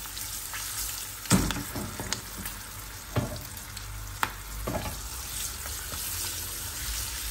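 Hot oil sizzling steadily as green chillies shallow-fry in a small aluminium pan, with kebabs deep-frying in a second pan alongside. About five sharp clicks and pops, the loudest about a second in and about four seconds in.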